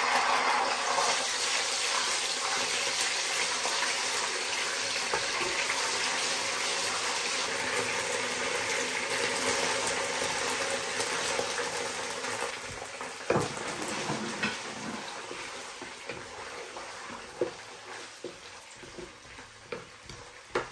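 Ginger-garlic paste and chopped onions sizzling in hot oil in a wok, a steady hiss that fades through the second half. From about two-thirds of the way in, a wooden spoon knocks sharply against the pan a few times as the onions are stirred.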